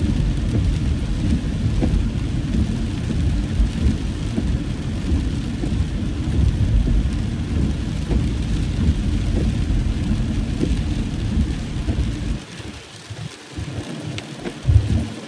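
Heavy rain drumming on a car's roof and windscreen, heard from inside the cabin as a dense low rumble with a hiss above it. About twelve seconds in it drops off sharply to a much quieter patter with a few short swells.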